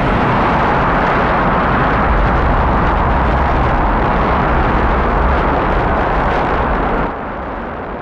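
Rocket engines firing at launch: a loud, steady roar with a heavy low rumble. About seven seconds in it drops abruptly to a quieter, more distant rumble.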